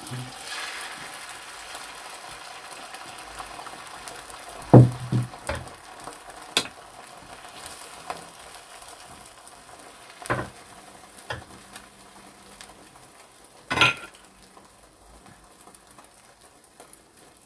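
Beaten egg sizzling in a hot frying pan as a rolled omelette cooks. The steady sizzle slowly dies down and is broken by a few sharp knocks and scrapes of a wooden spoon against the pan.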